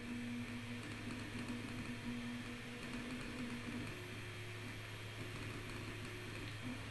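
Voron 2.4 3D printer printing a calibration cube: stepper motors sing in steady tones that jump to a new pitch about four seconds in as the moves change, over a steady fan hum. Mixed in is the annoying noise from near the toolhead, which the owner traced to a loose screw on a gantry linear rail.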